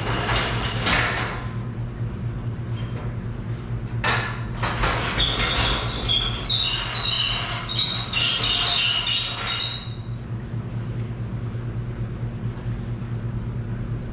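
Metal lifting chain being unhooked and handled, its links clinking and rattling in bursts with a ringing metallic tone, busiest from about four to ten seconds in. A steady low hum runs underneath.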